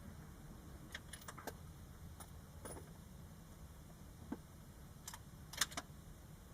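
A few light metallic clicks and clinks, scattered and irregular, with the loudest cluster about five and a half seconds in.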